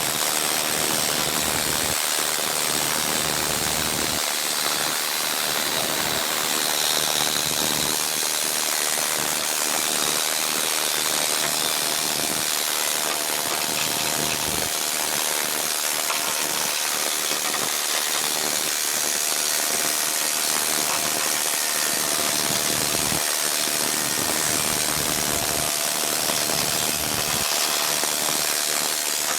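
A power tool runs steadily as it descales rust from a truck frame, making a constant loud hiss-like grind with faint steady tones in it.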